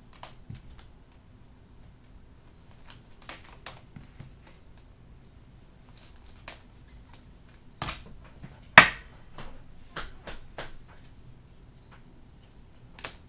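Trading-card box and pack packaging being handled and opened: scattered clicks, taps and crinkles, with one sharp snap about nine seconds in.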